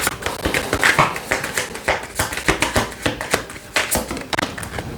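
Tarot cards being handled and shuffled: a quick, uneven run of crisp clicks and taps.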